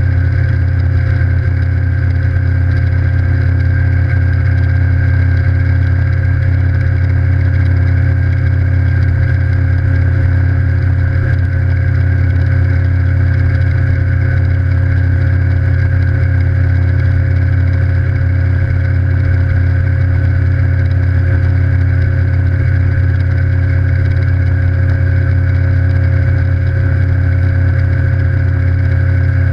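Evinrude E-TEC G2 150 HO outboard, a direct-injection two-stroke V6, running steadily under way with the boat on the plane. It holds a constant engine pitch, with no revving up or down.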